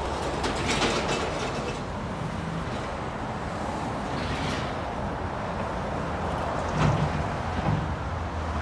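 Steady rumble of a heavy vehicle passing, with two sharp knocks near the end.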